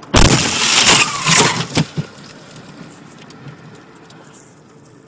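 A heavy object crashing into a car's windshield: a sudden loud impact with glass breaking and debris clattering for about two seconds, ending in a few sharp knocks. Steady road noise from inside the cabin follows.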